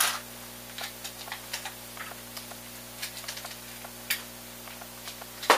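Light scattered clicks and ticks of small screws and a cordless screwdriver being handled on a workbench, with one louder sharp knock near the end.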